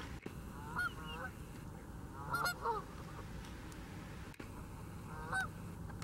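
Waterfowl calling: short calls, several in quick succession, in three bursts about a second in, around two and a half seconds in, and near the end, over a steady low background rumble.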